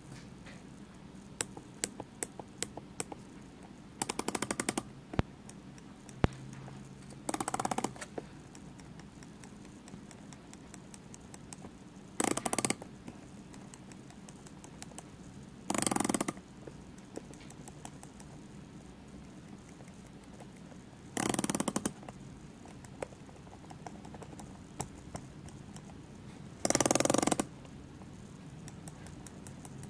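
Tag Heuer Aquaracer Calibre 5 dive watch bezel giving short bursts of rapid fine clicking, six times, with a few single clicks early on: the unexplained clicking it makes only when pressed at the 30 mark.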